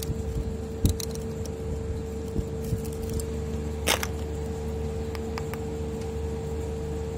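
Steady machine hum with a constant tone, over which a digital multimeter is handled: a couple of clicks about a second in, a louder click about four seconds in, then small ticks as the test probes are put to the compressor's terminals.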